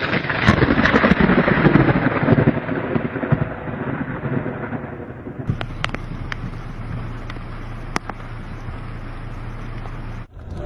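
Thunder: a sudden loud crack that rolls into a rumble and slowly fades over about five seconds. It is followed by a steadier hiss of heavy rain with a few sharp clicks.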